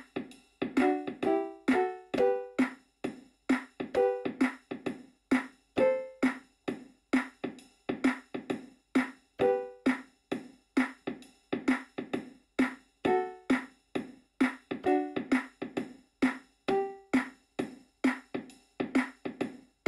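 Background music: a steady, quick beat of short, fast-fading notes, about three a second, with a simple melody picked out on some of them.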